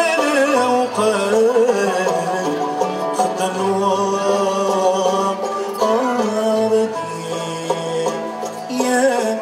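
Andalusian malouf ensemble music: oud, qanun and violins playing a flowing melody together in a steady, unbroken line.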